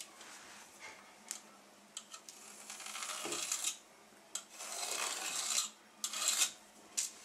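Pencil scratching along the edge of a spirit level on a plastered wall, drawing a line in three strokes, with a few small sharp taps between them.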